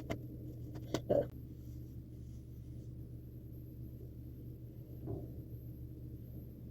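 Soft handling noises as a heatless curl rod and scrunchies are unwrapped from hair: a few short clicks and rustles around the first second and one more soft knock about five seconds in, over a steady low hum.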